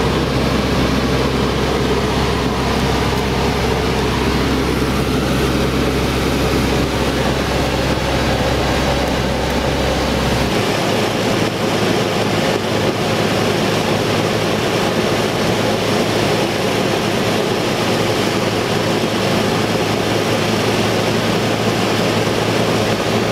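Cessna 172's piston engine and propeller running steadily in flight, heard from inside the cabin. The deepest part of the drone drops away about ten seconds in.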